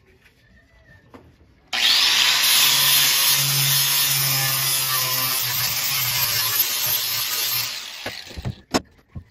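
Cordless angle grinder cutting into sheet-metal panelling. It starts abruptly about two seconds in as a loud, steady grinding hiss over the motor's hum, winds down about eight seconds in, and is followed by a couple of sharp knocks.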